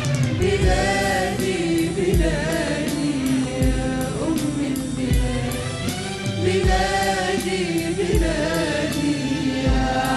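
Mixed choir of male and female voices singing an Arabic song with vibrato, over a backing track with a low drum beat about every second and a half and light ticking percussion.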